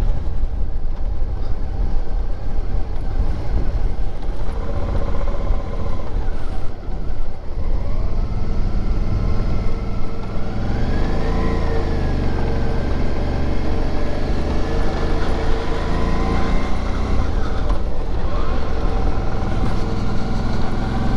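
Suzuki V-Strom motorcycle's V-twin engine running under way. About ten seconds in, its pitch climbs and then drops back as the rider accelerates and shifts.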